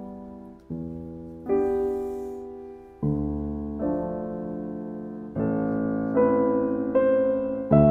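Soft background piano music: slow chords on a piano-like keyboard, a new one struck about every second and left to fade.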